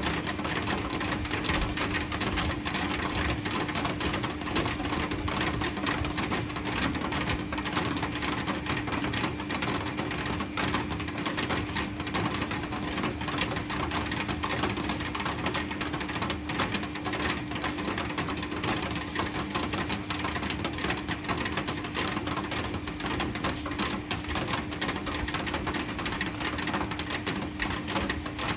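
Heavy rain falling in a dense, steady patter of drops, with a steady low hum underneath.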